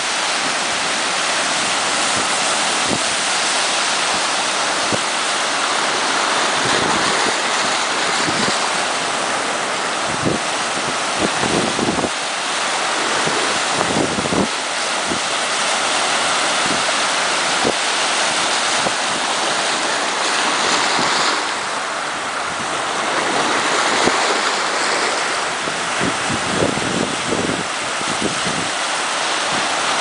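Caribbean Sea surf: waves breaking on the reef offshore and washing in among the rocks at the water's edge, a steady rushing noise that swells and eases a little.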